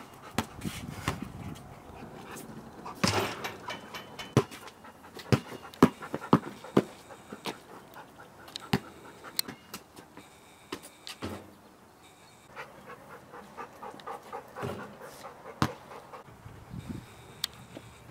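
A basketball bouncing on a concrete driveway, sharp knocks at uneven intervals, with hard breathing between them.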